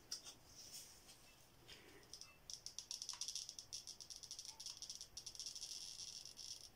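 A few faint handling clicks, then from about two and a half seconds in a fast, dry crackling rattle as a hot glue gun is worked along the pot's edge.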